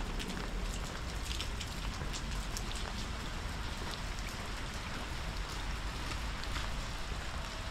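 Steady rain falling on hard surfaces, with many scattered drops ticking close by.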